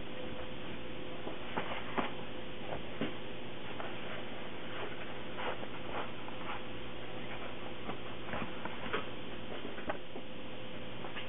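Baguette dough being hand-shaped on a wooden bench and set into a linen couche: scattered soft taps and pats over a steady background hum and hiss, with a faint steady tone.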